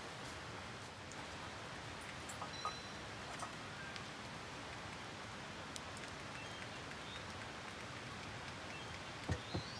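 Steady rain falling as an even hiss, with scattered small drip ticks. Two short knocks near the end are the loudest sounds.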